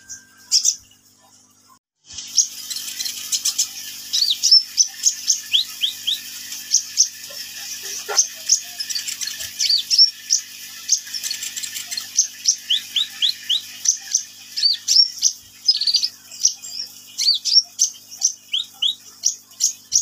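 Caged sunbird (the kind sold as 'kolibri ninja') singing a long, fast, continuous run of high, thin downslurred notes and chirps, starting about two seconds in over a steady hiss.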